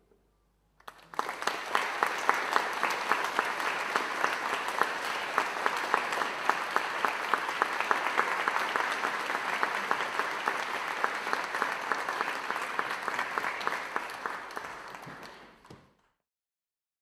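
Audience applauding, breaking out about a second in, steady and dense, then dying away near the end.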